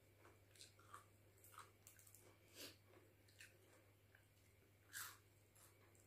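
A person chewing food, with soft wet mouth smacks and small crunches at uneven intervals and one louder smack about five seconds in. A faint steady low hum lies underneath.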